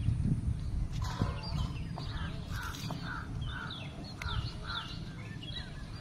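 A crow cawing in a run of about six calls, roughly two a second, starting about two seconds in, with small birds chirping higher up and a low rumble underneath.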